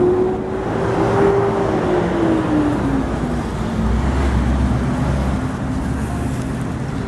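A motor vehicle passing on the street, its engine note holding and then dropping in pitch over a few seconds, under a steady rumble of traffic and wind noise.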